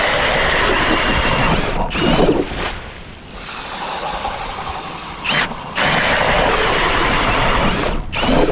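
Cordless drill spinning an 8-inch Strikemaster Lite Flite ice auger down through lake ice, a loud, dense grinding of the cutting blades chipping ice. It comes in two loud runs with a quieter stretch in the middle.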